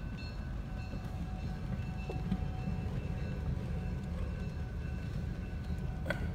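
Freight train of hopper and tank cars rolling past across a level crossing, heard from inside a car: a steady low rumble of the wagons on the rails, with a sharp knock near the end.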